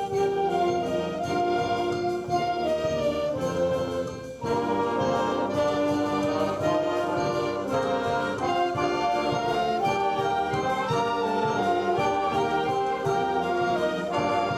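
School band playing, with brass carrying held chords under a moving melody line; the music breaks off briefly about four seconds in, then goes on.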